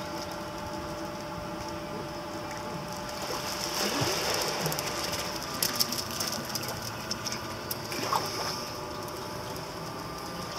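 Steady machine hum holding several fixed tones, with a few sharp clicks about halfway through.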